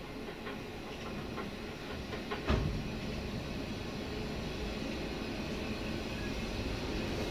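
Passenger train carriage rolling along the track: steady rumble of wheels on rail, a few light clicks and one sharp clack about two and a half seconds in, as the wheels pass over rail joints.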